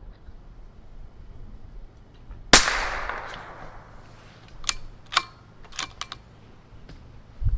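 A single shot from a Bergara BMR bolt-action .22 LR rimfire rifle firing SK Long Range Match ammunition, a sharp crack with a short echo about two and a half seconds in. It is followed over the next few seconds by four quick metallic clicks as the bolt is worked.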